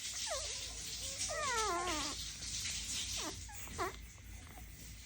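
Dalmatian puppies whining: a few short high whines, and about a second and a half in one longer wavering whine that falls in pitch.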